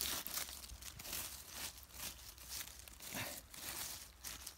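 Dry leaf litter on a beech-forest floor rustling and crunching in irregular bursts as it is stepped on or pushed about.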